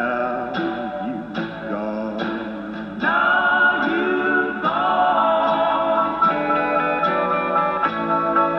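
A 1946–47 Silvertone 6051 tube radio playing an oldies song with singing and guitar through its speaker. The sound is thin, with no deep bass or bright highs, and gets louder about three seconds in.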